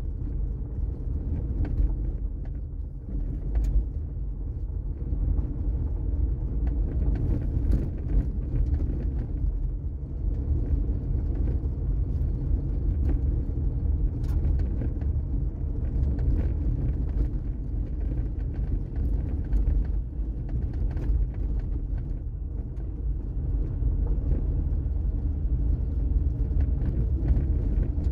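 A car driving: a steady low rumble of road and engine noise, with scattered light clicks and knocks.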